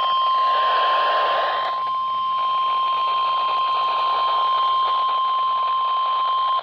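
Emergency alert attention tone on a weather radio, a single steady high tone, probably the NOAA Weather Radio 1050 Hz warning alarm that announces a severe thunderstorm warning. It plays over radio static and cuts off suddenly near the end.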